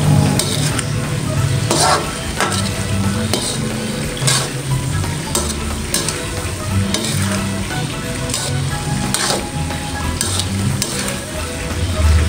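Spatula stirring and scraping long beans around a nonstick wok while the sauce sizzles. The scrapes come at an uneven pace, roughly one a second.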